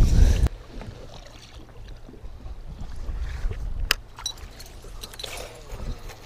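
Choppy lake water lapping against a small fishing boat, under a steady low hum. Wind on the microphone cuts off abruptly about half a second in, and there is a single sharp click near four seconds in.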